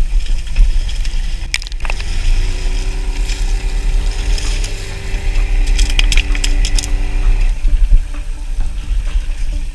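Wind buffeting the microphone and water rushing against the hull of a small fishing boat at sea, with a few sharp clicks and knocks. A steady hum sets in about two seconds in and stops a couple of seconds before the end.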